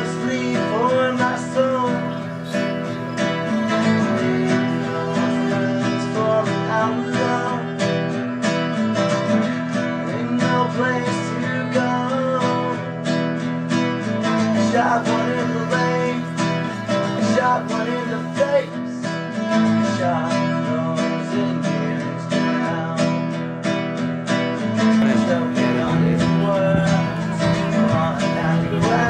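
Background music: a strummed acoustic guitar playing steadily.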